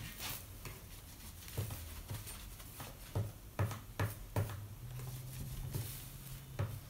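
Light, irregular clicks and taps of soldering work on a stained-glass lampshade: the soldering iron and glass pieces being handled, several clustered a few seconds in, over a faint low hum.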